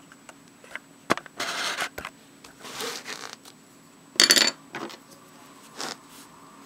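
Handling noise from the sketchbook and pen being moved about: a run of short scrapes and clicks, the loudest a brief clattering scrape about four seconds in.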